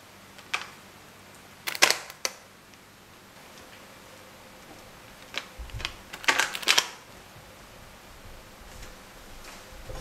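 A few short clicks and knocks from a silicone spatula against a parchment-lined metal baking pan while it spreads chocolate ganache. They come in two clusters, near two seconds in and again around six seconds in, the second with a low thud.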